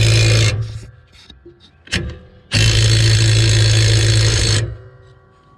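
Impact wrench tightening a mower blade bolt, run in two bursts: a short one ending about half a second in and a longer one of about two seconds near the middle, with a sharp click between them.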